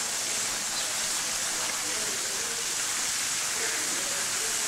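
Steady rush of running water in a rock-edged garden pond, with faint voices talking in the background.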